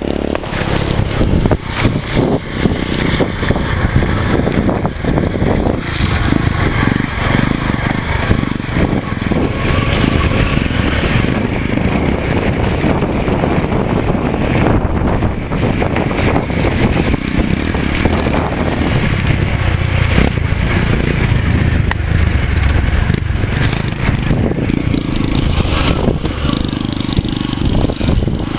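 Vehicle engine running while travelling over a rough dirt trail, with a steady loud rush of wind and road noise and frequent small knocks and rattles.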